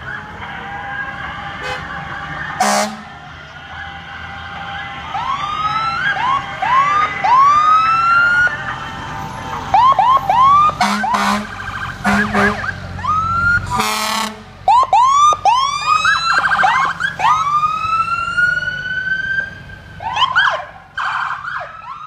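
Emergency vehicle sirens of passing fire-rescue apparatus, sounding in repeated short rising whoops over the low run of the truck engines. Several short air horn blasts come in between the whoops, the longest about fourteen seconds in.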